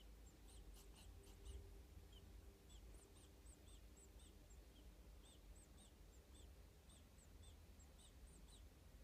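Indian star tortoise wheezing: faint, high squeaky peeps repeating about two or three times a second, with a short pause midway, over a low hum.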